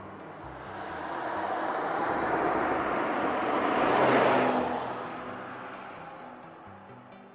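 A Porsche Macan GTS with a 2.9-litre twin-turbo V6 drives past. Its sound swells to a peak about four seconds in, then fades as it drives away.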